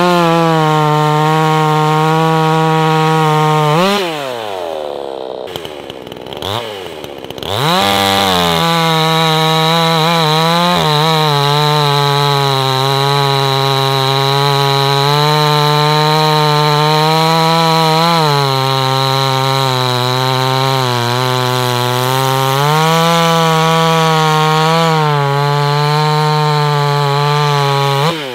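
Two-stroke chainsaw engine at full throttle cutting through a log. It drops to idle about four seconds in, revs back up a few seconds later and cuts on, with the pitch sagging slightly under load partway through and falling again at the very end.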